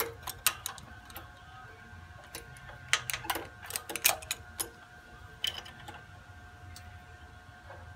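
Irregular sharp metallic clicks and clinks of a hand tool and small parts being worked at the governor cross shaft and bushing of a Kohler K321 engine, coming in clusters near the start, in the middle and about five and a half seconds in, over a low steady hum.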